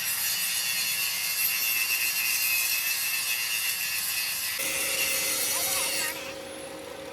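A power tool grinding metal, a harsh continuous hiss-like noise. A steady whine joins it about four and a half seconds in, and the grinding stops abruptly about six seconds in.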